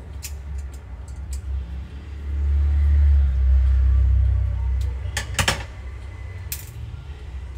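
Small hand tools clicking and scraping on a laptop lid's hinge bracket, with a quick cluster of sharp clicks about five seconds in. A low rumble swells from about two seconds in and fades by about five seconds, the loudest sound.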